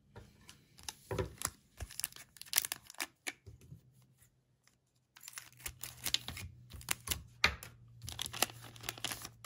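Plastic wrapper of a baseball card pack being torn open and crinkled by hand, in two spells of sharp rustling and ripping with a short pause between them.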